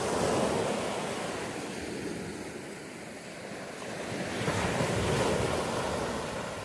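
Sea waves washing in, swelling at the start and again about five seconds in, with wind blowing across the microphone.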